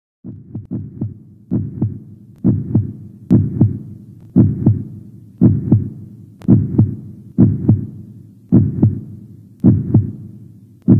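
A heartbeat sound effect: paired low thumps, lub-dub, about one beat a second, fading in over the first few beats and then steady.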